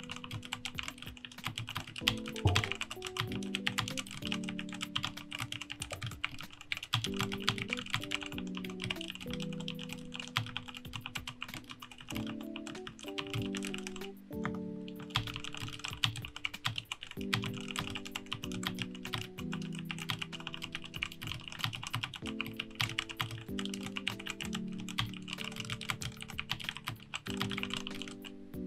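Fast, continuous typing on a Redragon K617 Fizz 60% mechanical keyboard with red linear switches (rebranded Outemu reds) in a light plastic case, with a short pause about halfway through. Background music with sustained chords plays underneath.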